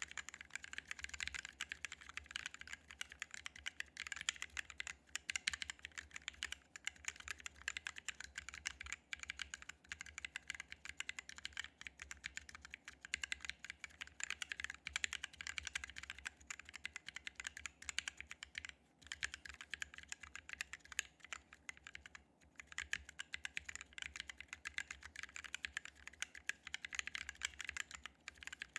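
Continuous fast typing on a Drop x OLKB Planck v6 40% mechanical keyboard fitted with Halo True tactile switches lubed with Krytox 205g0 and DSA PBT keycaps: a dense run of key clacks with two short pauses about two-thirds of the way through.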